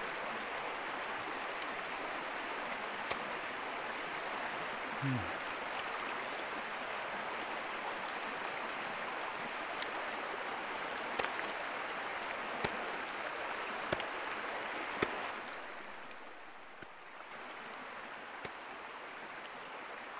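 Steady rush of a stream running over stones, dipping briefly about three-quarters of the way through, with scattered light clicks and knocks as durians are handled on the river pebbles.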